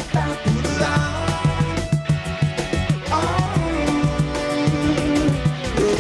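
A band playing a song between sung verses, with a steady drum beat, bass and a long held melody line that slides to a new note about three seconds in and again near the end.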